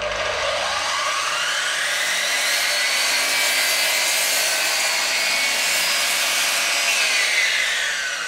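Loud belt-driven sliding compound miter saw: the motor spins up with a rising whine over the first two seconds, runs steadily while the blade cross-cuts a Siberian elm board, then winds down with a falling whine near the end.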